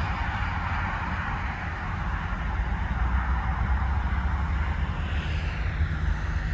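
Diesel locomotive approaching slowly, its engine a steady low rumble, mixed with the hiss of road traffic; near the end a passing vehicle's sound falls in pitch.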